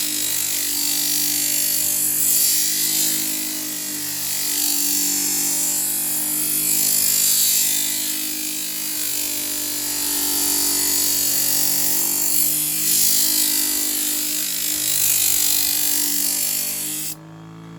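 Electric scissor-sharpening machine's rotating abrasive disc grinding a wetted kitchen knife blade: a steady motor hum under a loud hiss of steel on the abrasive that swells and eases as the blade is worked. The grinding stops abruptly near the end.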